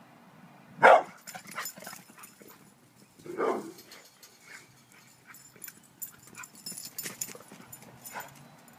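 Brindle pit bull barking: a sharp, loud bark about a second in and a longer, deep bark a few seconds later, followed by fainter scattered clicks.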